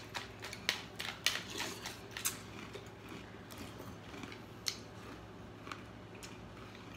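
Spoons clicking and scraping against cereal bowls as people scoop and eat cereal with milk, with many quick clicks in the first two seconds and only a few scattered ones after.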